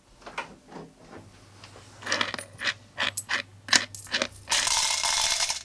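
Coins clinking and jingling in a quick run of sharp metallic clinks, then about a second of continuous rattling that stops abruptly, as coins are gathered up by hand.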